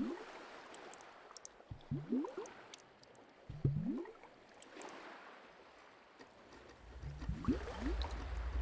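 Slowed-down liquid gurgles: low bubbling bloops that rise in pitch, one every second or two, over a soft fizzing hiss dotted with tiny pops. A low rumble builds near the end.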